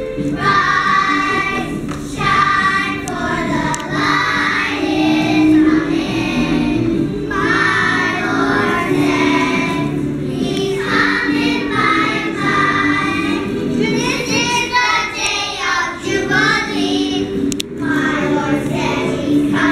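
A group of kindergarten children singing a song together.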